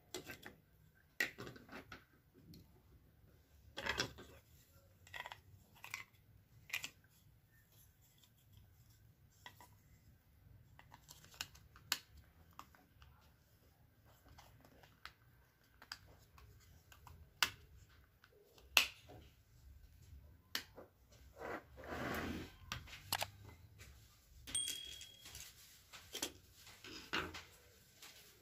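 Scattered light clicks and taps of a plastic electric-blanket controller housing and its circuit board being handled, opened and set down on a workbench. There is a short scraping rustle about three quarters of the way through.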